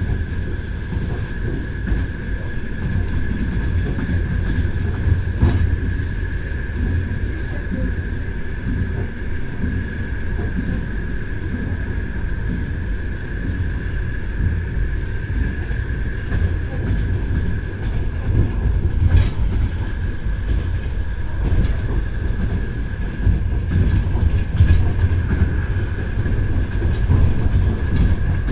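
A moving train's wheels knocking on the rails, over a steady low rumble, with a sustained high-pitched tone and a few sharp clicks scattered through.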